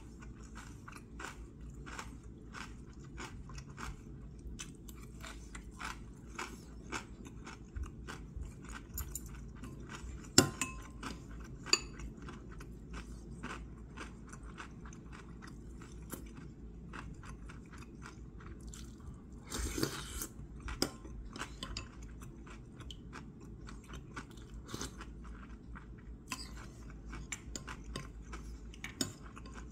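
A person chewing and crunching food close to the microphone, with many short crunches throughout. Metal chopsticks and spoon clink against the dishes, with two sharp clinks about a third of the way in.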